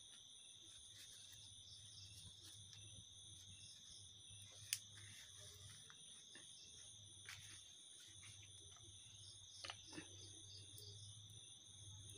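Faint, steady chirring of crickets, with a few soft clicks and taps from handling close by, the sharpest about five seconds in.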